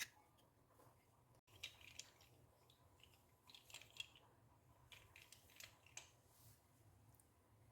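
Faint, scattered scraping strokes, short and scratchy, coming every half second to a second, with near silence between them.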